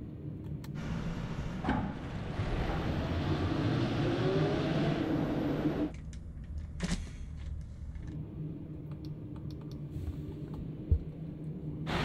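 Tractor assembly-line factory ambience: a steady low machinery hum with scattered clicks and clanks, the background changing abruptly several times, and one sharp knock about eleven seconds in.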